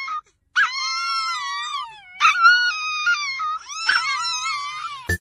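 A Chihuahua howling in long, high, wavering wails, three drawn-out howls with short breaks between them. A sharp click sounds just before the end.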